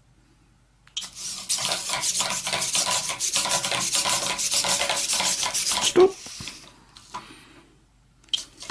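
Bittle robot dog stepping on a tabletop: its servo motors whir while its plastic legs and feet clatter and scuff in a dense run of rapid clicks and rasping. It starts about a second in and stops abruptly after about five seconds.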